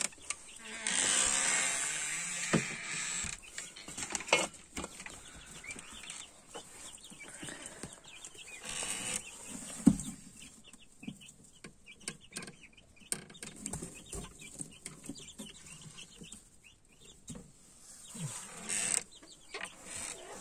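Chickens clucking in the background throughout, over rustling of straw and a few sharp knocks on the wooden hutch, the loudest about ten seconds in.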